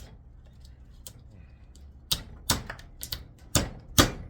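Hammer striking a chisel to crack apart the cast body of a small transformer. After a few faint clinks, five sharp blows come about two a second, starting about two seconds in.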